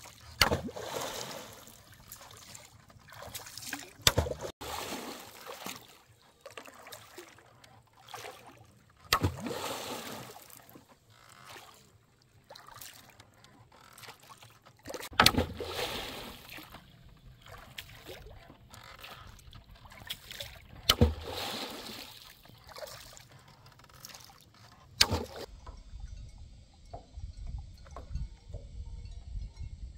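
Oar strokes in lake water as a small bamboo-framed boat is rowed: about every five seconds a sharp knock followed by a splash and swish of water, six strokes in all. Near the end the strokes stop and only a faint low rumble remains.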